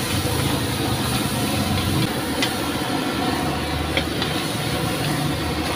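Stir-frying in a steel wok over a gas wok burner: a steady rush of burner noise and hiss, with the metal spatula clinking against the wok a couple of times as egg, greens and sambal are tossed.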